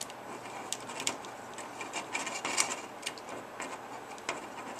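Small irregular clicks and light scraping from pliers and a small screw and nut being worked into a plastic rotor blade grip on a toy helicopter's main blade.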